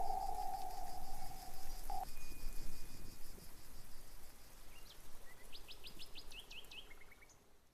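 Birds chirping over a faint pulsing insect trill, with a quick run of high chirps near the end. A held music note fades out in the first two seconds.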